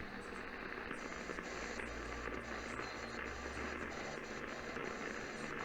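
Low radio static and hiss: dead air on a received broadcast, with a faint hum underneath.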